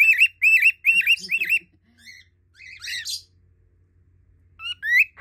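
Small pet parrot chirping in quick runs of short rising-and-falling whistled notes, about four a second, in three bursts with pauses between.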